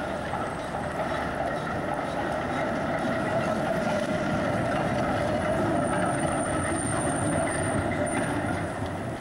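Articulated street tram passing close, its wheels running on the rails as it takes a curve. The sound swells as it goes by, with a thin high wheel squeal from about six seconds in to near the end.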